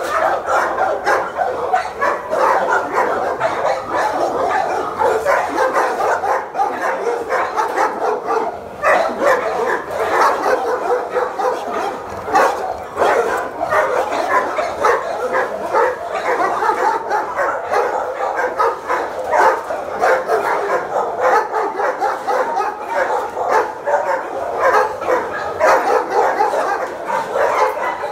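Many dogs in kennel runs barking at once without letup, a dense din of overlapping barks.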